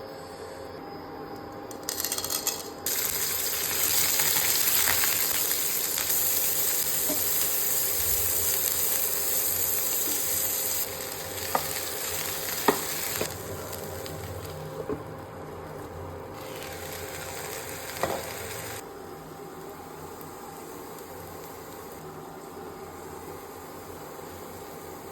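Okra (bhindi) frying in hot oil in a pan: a loud sizzle starts about two to three seconds in and eases off after about eleven seconds. A few sharp knocks come through in the middle, the sizzle swells again briefly, and it settles to a low hiss near the end.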